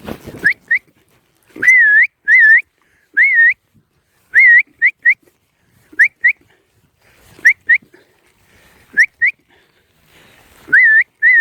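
A handler's shrill whistled commands to working cattle dogs: a series of short rising notes and longer up-and-down notes, in twos and threes, repeated every second or so.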